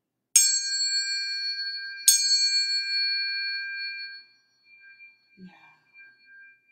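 Tuning forks struck twice, about a second and a half apart, each strike a sharp clink followed by a clear ring of two steady tones that slowly fade.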